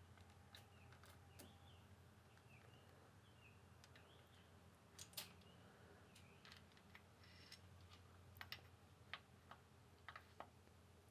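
Near silence with faint, scattered clicks and light metallic ticks from a Subaru FA/FB engine's timing chain being worked off its cam and crank sprockets by hand, over a low steady hum.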